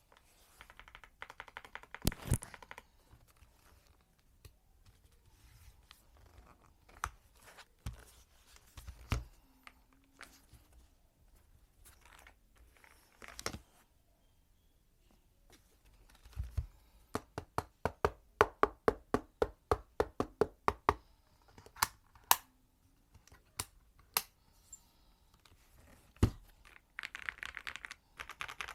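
Mchose K99 mechanical keyboard with Kailh Ice Cream switches and Cherry-profile keycaps being typed on: quick bursts of keystrokes between scattered single presses. In the middle there is a fast, evenly spaced run of strokes.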